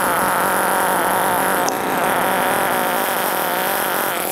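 Two-stroke chainsaw fitted with a Stihl 20-inch light bar and full-skip chisel chain, running at full throttle as it cuts through a dead log. The engine note holds steady and loud under load.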